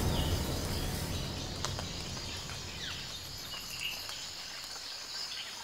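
Nature ambience: a steady high insect drone with a few short bird chirps, while low background music fades out over the first couple of seconds.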